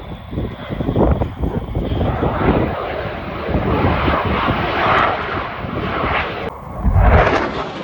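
Military aircraft flying past with a loud, rough engine roar that rises and falls in surges, and a heavy low thump near the end.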